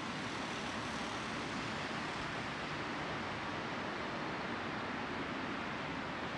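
Steady, even outdoor background noise with no distinct events: a constant hiss and rumble spread from low to high pitches.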